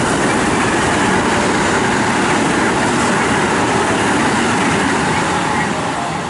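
JR West electric commuter train passing through the station, its wheels and running gear loud and steady, then easing off near the end as the last car clears.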